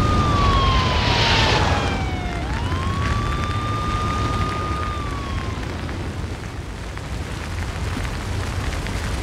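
A fire vehicle's siren wailing: its tone falls away over the first two seconds, swoops back up, holds, then falls again and dies out about five and a half seconds in. A steady low rumble runs underneath, slowly fading.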